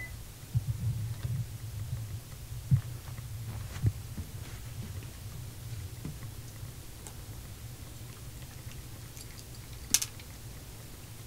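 A steady low hum with scattered soft clicks and taps, and one sharp click about ten seconds in.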